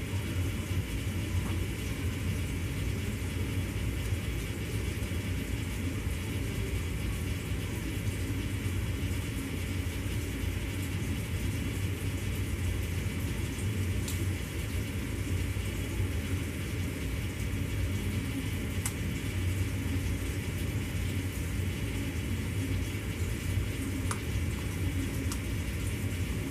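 Steady low rumble and hiss of background noise, with a few faint clicks as small parts are handled about halfway through and again near the end.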